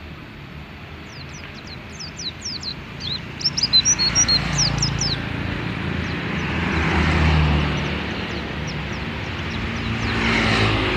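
Young caged pleci (white-eye), about three months old and starting to sing, gives a run of rapid, high-pitched chirps in the first half. A motor vehicle then passes on the road, swelling and fading about two-thirds of the way in, and another passes near the end.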